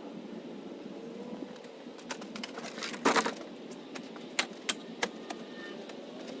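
Several sharp clicks and knocks over a steady low background noise, the loudest a short burst about three seconds in, followed by three quick single clicks.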